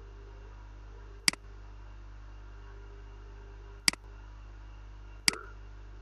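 Three sharp computer mouse clicks, spaced a second or two apart, over a steady low electrical hum.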